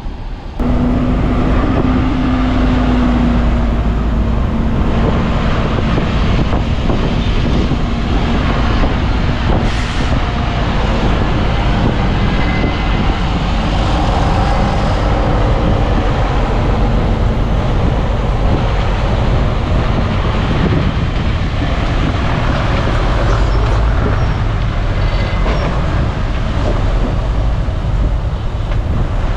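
Heavy diesel earthmoving machinery running loudly and steadily under work. The sound cuts in abruptly about half a second in.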